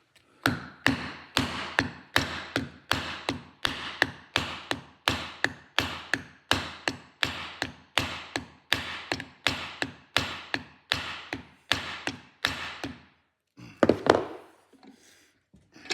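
Hammer blows through a block of wood, driving a tight-fitting slotted ABS reluctor ring onto a drive shaft's CV joint: an even run of taps, about three a second, each ringing briefly, then a pause and a couple of louder blows near the end.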